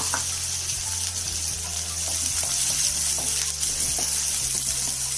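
Chopped onions sizzling in hot oil in a nonstick kadai, a steady hiss, while a wooden spatula stirs them with a few faint taps against the pan. A low steady hum that shifts in pitch in steps runs underneath.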